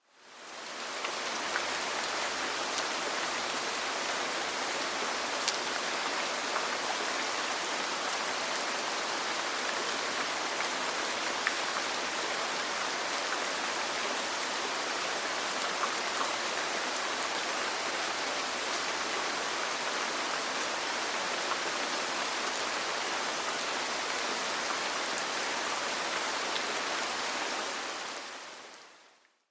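Steady rain falling on a roof, an even hiss with scattered small drop ticks. It fades in over about the first second and fades out near the end.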